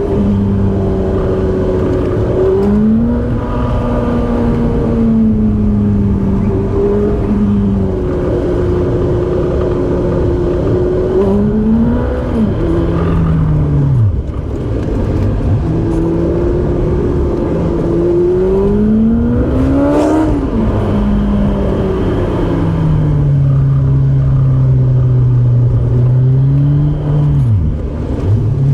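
Car engine revving up and easing off over and over, its pitch climbing under throttle and falling away sharply several times, as on a twisting road.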